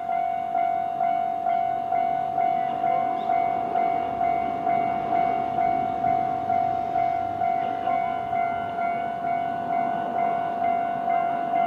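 Japanese level-crossing electronic warning bell ringing steadily, about two strikes a second. A passing train's running noise swells underneath in the middle, from a 701-series electric train.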